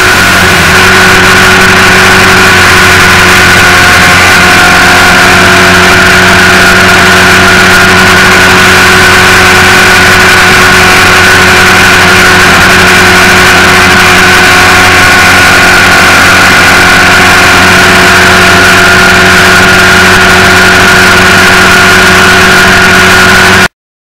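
Yamaha XT225's single-cylinder engine running at a steady cruise under heavy wind noise on the microphone, very loud, cutting off suddenly near the end.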